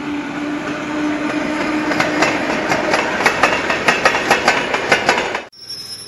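Old electric suburban train with its wagons passing close by, the wheels clattering over rail joints at about four clicks a second and getting louder. A steady tone sounds under it for the first two seconds, and the sound cuts off abruptly near the end.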